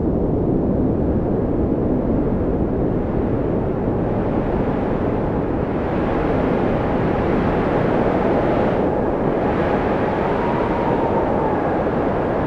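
Winter storm wind blowing steadily and hard, with a faint whistle that rises and falls in pitch.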